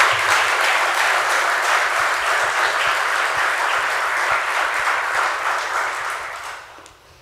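Audience applauding, steady, then dying away about six seconds in.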